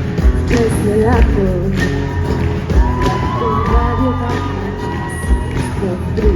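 Live band music: a pop-rock song's intro with a steady drum beat and a sliding melodic line over it.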